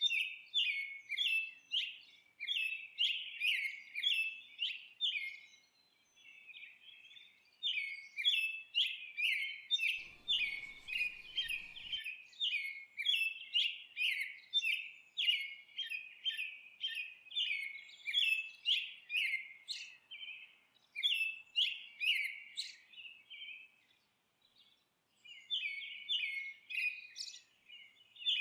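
Small birds chirping: quick runs of short, high chirps, several a second, with a couple of brief pauses.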